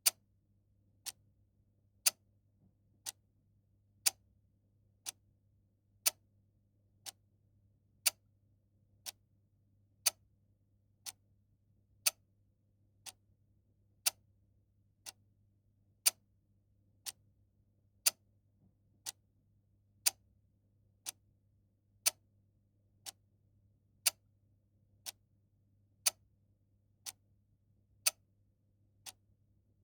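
A clock ticking steadily once a second, its ticks alternating louder and softer as a tick-tock.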